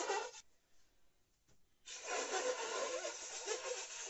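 Conch shell (shankh) blown in two breathy attempts, one ending about half a second in and another starting about two seconds in. Each is mostly rushing air with a weak, wavering buzz rather than a full clear note: the shankh is hard to sound, and the blower is not getting it to speak properly.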